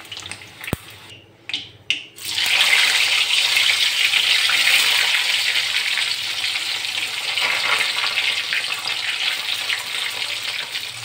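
Boiled potato pieces sizzling in hot mustard oil in a kadhai: a few clicks, then about two seconds in a loud, steady sizzle.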